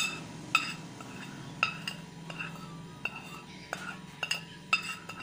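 A steel spoon clinking and tapping against a ceramic plate and a glass bowl: about ten light, separate clinks, each with a short ring, as salt is scraped off the plate into the bowl. A faint steady hum runs underneath.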